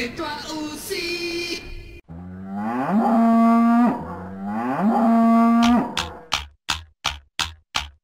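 Two long cattle moos, each about two seconds, rising at the start, holding a steady pitch, then dropping away. Before them the tail end of a sung song cuts off, and after them a regular ticking starts at about three ticks a second.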